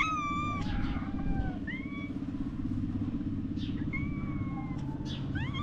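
Stray domestic cats meowing for food: several short meows a second or two apart, some rising in pitch, over a steady low rumble.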